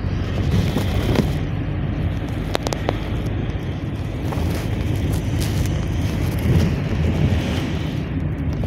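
Cabin noise of a GAZelle Next minibus on the move: a steady low engine drone over road and tyre noise, with a few short clicks or rattles about two and a half seconds in.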